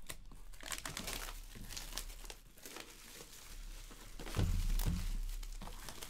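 Plastic shrink wrap crinkling and tearing as it is peeled off a trading-card box, with a louder low thump about four and a half seconds in.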